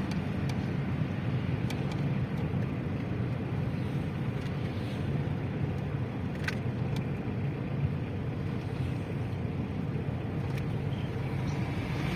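Steady road and engine noise heard inside a moving car's cabin, a low even rumble with a few faint ticks.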